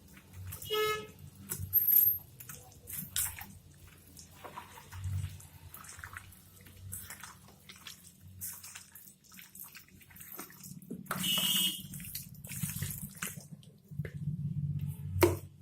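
Raw mutton being squeezed and mixed by hand in a thick curd-and-spice marinade: irregular wet squelching, with a short pitched sound about a second in.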